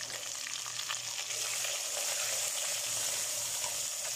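Sliced onions sizzling in hot mustard oil with whole spices in a steel pot, a spatula stirring them. A steady frying hiss with a few faint scraping ticks in the first second.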